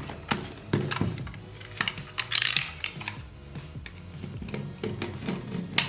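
A cardboard smartphone retail box being handled on a tabletop: a string of irregular clicks and taps, with a brief scraping rustle about two and a half seconds in.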